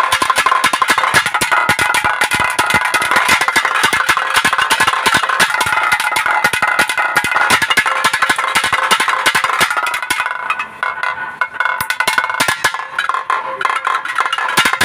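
Naiyandi melam folk ensemble playing: fast, dense thavil drumming under a steady held tone from a reed pipe. About ten seconds in the music drops in level and the drum strokes thin out.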